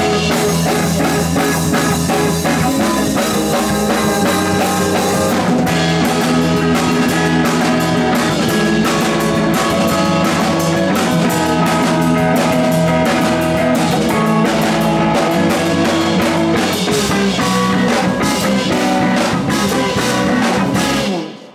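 A rock band playing live: electric guitars, bass and a drum kit, loud and steady. The sound dies away quickly just before the end.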